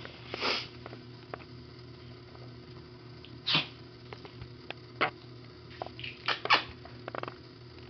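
Small Chihuahua-type dog snuffling at its toys: several short, breathy nasal puffs, the loudest about three and a half and six and a half seconds in. Light clicks are scattered between them over a steady low hum.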